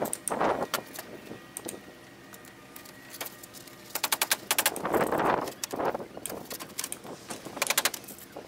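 Roofing felt scraping and rustling under a hand, with quick runs of small rattling clicks from nails in a plastic tub, about four seconds in and again near the end.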